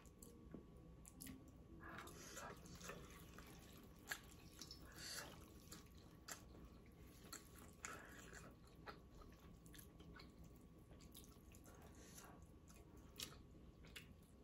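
Quiet chewing and slurping of ramen noodles, with a few sharp clicks of wooden chopsticks against the metal hot pot, the loudest about four seconds in.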